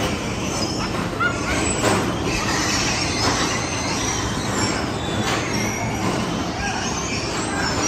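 Electric bumper cars rolling and whirring around an indoor rink, a steady loud rumbling din, with a few short high squeaks and light knocks in the mix.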